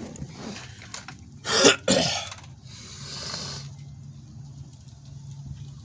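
A man coughing twice in quick succession about a second and a half in, followed by a softer breathy rasp; he is a little sick.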